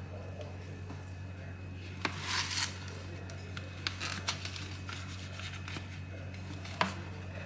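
Cloth kitchen towel rustling briefly as it is pulled off a tray of proofed bread dough, followed by a few light ticks and one sharp click from handling the metal baking tray, over a steady low hum.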